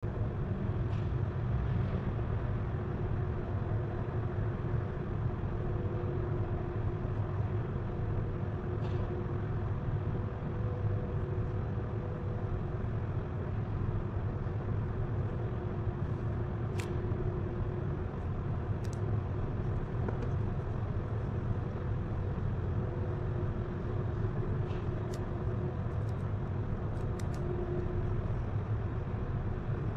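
A steady low mechanical hum and rumble, with a few faint clicks in the second half.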